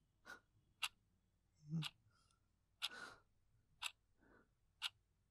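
Faint clock ticking, one tick a second, with a frightened man's soft breaths and sighs between the ticks.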